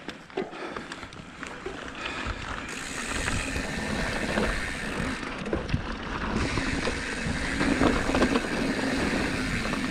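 Mountain bike rolling downhill on a dry dirt singletrack: knobby tyres running over dirt and small rocks, with frequent knocks and rattles from the bike. It gets louder about two to three seconds in as the bike picks up speed onto the trail.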